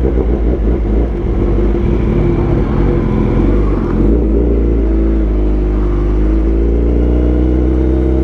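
Kawasaki Ninja ZX-10R superbike's inline-four engine running on the move. Its note sags a little about midway and picks up again near the end.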